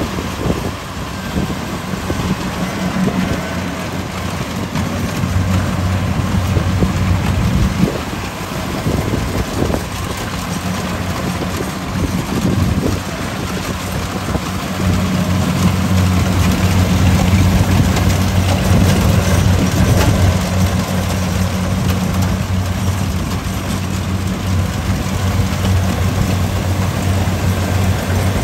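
Kubota DC-70 combine harvester's diesel engine running steadily under a wash of machinery noise, growing louder about halfway through.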